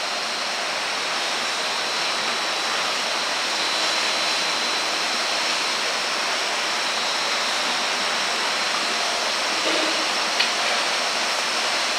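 Steady rushing background noise of brewery cellar equipment, with a faint high whine, and a couple of light knocks near the end as a hose is handled.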